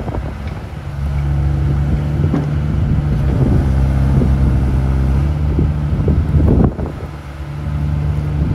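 JCB 8052 midi excavator's diesel engine running under hydraulic load as the machine slews and works its arm, the steady engine note stepping up in level about a second in and holding. Near two-thirds through, the level drops briefly with a few clunks.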